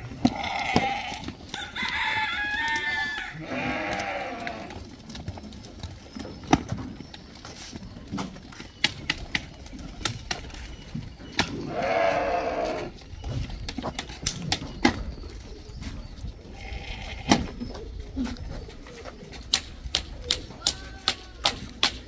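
A flock of black-headed sheep bleating several times, with wavering bleats in the first few seconds and a loud one about twelve seconds in. Many sharp clicks and knocks come in between, more often near the end.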